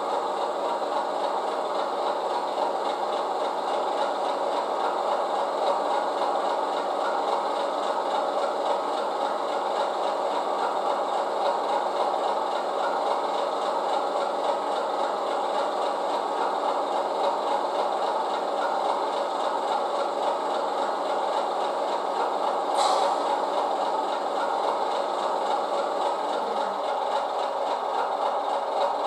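DCC sound decoder playing a Class 30 diesel locomotive's Mirrlees engine sound, made from recordings of a real Mirrlees MB275T engine. The engine runs steadily, with one short sharp click about 23 seconds in.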